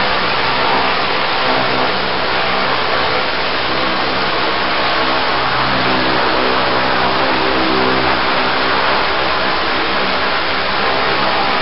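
High-pressure water-blasting lance spraying a jet against a barge's barnacle-encrusted hull, a loud, steady hiss of water. The blasting unit's pump engine runs at a steady speed underneath.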